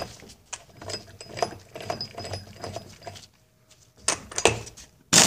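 Light metallic clicks and clinks as an air impact wrench's socket is worked onto the flywheel puller's centre bolt. Just before the end, the impact wrench starts hammering in a loud burst to drive the puller and pop the outboard's flywheel.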